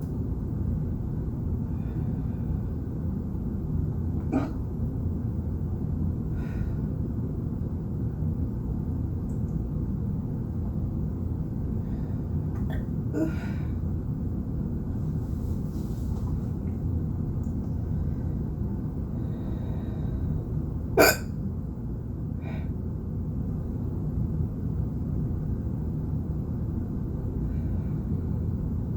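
A person hiccuping: about five short, sharp hiccups spaced several seconds apart, one much louder than the others, over a steady low background noise.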